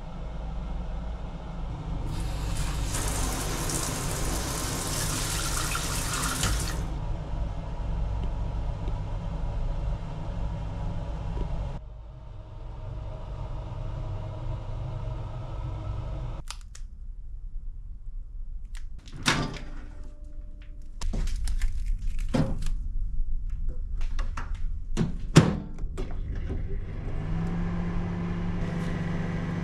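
Water runs for about five seconds in a small unit bathroom over a steady low room hum. Several sharp clicks and knocks follow. Near the end a steady low hum starts up as a countertop microwave is switched on.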